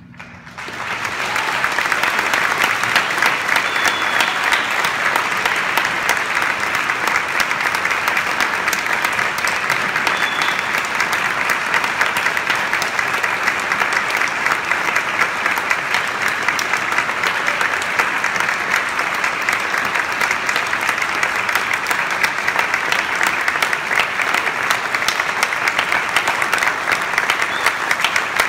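Audience applauding, a dense steady clapping that swells up about half a second in and holds on.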